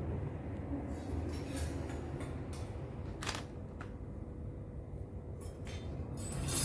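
A few light clicks and knocks of objects being handled, over a steady low hum.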